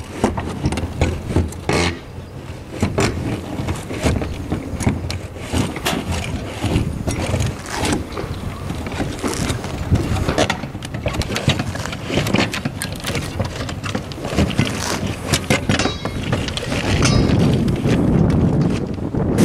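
Roofing shovels scraping and prying old shingles off a roof, with irregular scrapes, knocks and clatter over a steady low rumble.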